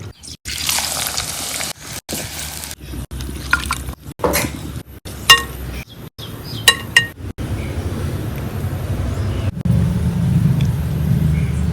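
Kitchen sounds from cooking, in short cut-together clips: a hiss near the start, then utensils clinking against dishes with a few sharp ringing strikes around the middle, and a steady low rumble in the last few seconds.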